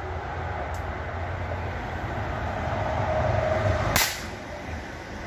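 A single shot from a Röhm RG20 .22 Short revolver, a short sharp crack about four seconds in. Under it runs a steady low mechanical rumble that slowly grows louder.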